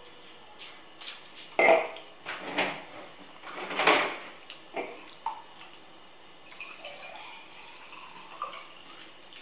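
Clatter and knocks of a plastic bottle and a wine glass being set down on a wooden table, then a drink poured from the bottle into the glass, its pitch rising as the glass fills.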